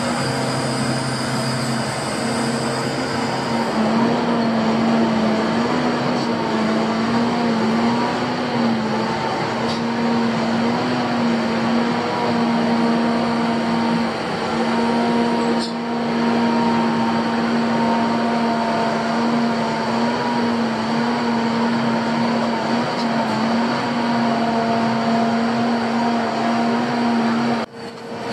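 Volvo FH16 750 log truck's engine running at raised revs to drive its hydraulic loading crane, a steady hum whose pitch dips and wavers as the crane takes load, with a fainter higher whine above it. The sound briefly drops out near the end.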